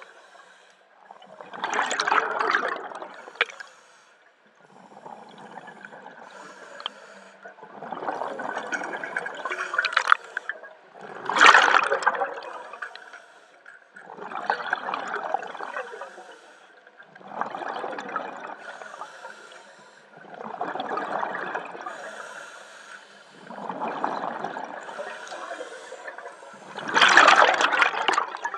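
A scuba diver breathing through a regulator underwater: regular swells of hissing and bubbling about every three seconds, a few of them louder bubble bursts.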